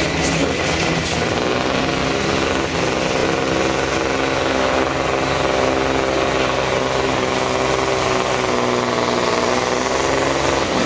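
Volvo FH16 supersport pulling truck's diesel engine running flat out under full load as it drags a weight-transfer sled down the track, a steady, rough, high-revving note.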